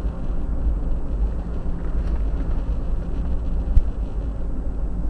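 Steady engine and road rumble inside a moving police car's cabin at road speed, with one sharp click a little before four seconds in.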